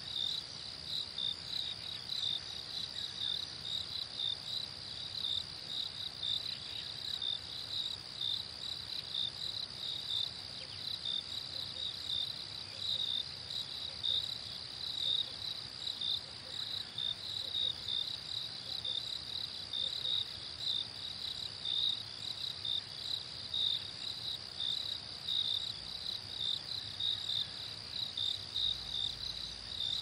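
Crickets chirping in a night chorus: a steady high trill with a rhythmic pulsing chirp over it, going on without a break.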